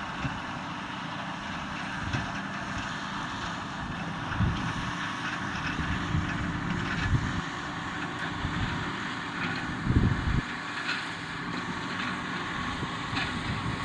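John Deere 6250R tractor running steadily while pulling a working Fendt 4160 V round baler. Wind buffets the microphone in gusts, the strongest about ten seconds in.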